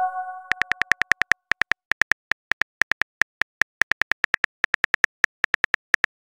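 Phone keyboard key-tap clicks: a fast, uneven run of short ticks, several a second, as a text message is typed out. A chime fades out during the first half-second.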